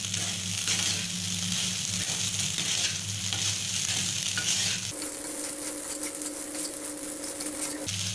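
Wooden spatula stirring and tossing flattened rice (poha) with peanuts and onions in a non-stick frying pan, with a light sizzle from the pan over a steady low hum. For about three seconds past the middle the hum gives way to a higher one, under scratchier scraping.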